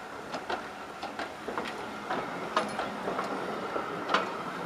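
Railway passenger coaches rolling past, their wheels giving irregular sharp clicks and knocks over the track, over a steady thin ringing tone.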